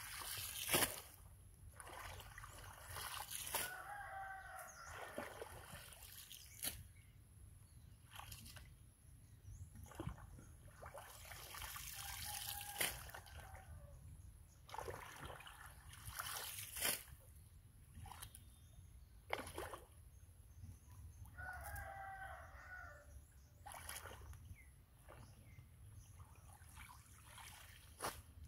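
Water splashing and sloshing as a person wades through a shallow, plant-choked pond and pulls up water hyacinth, in separate splashes every few seconds. A rooster crows a few times, about four seconds in, near the middle and about twenty-two seconds in.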